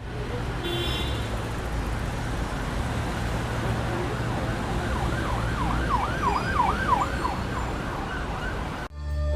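Steady traffic noise with an emergency siren yelping fast up and down, about two to three cycles a second, for a few seconds past the middle. The sound cuts off abruptly near the end.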